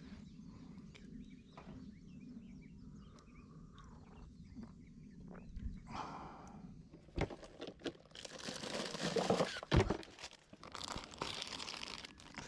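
Faint low hum with small chirps, then from about halfway irregular crunching and rustling with a few sharp knocks.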